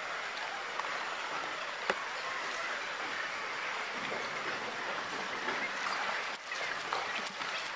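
Steady, even hiss of background crowd noise in a large sports hall, sped up fourfold, with a few sharp clicks, the loudest about two seconds in.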